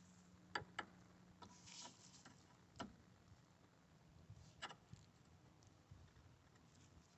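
Near silence broken by a handful of faint clicks and taps: a small screwdriver and pry bar working a rubber stop out of a plastic air box, over a faint low hum.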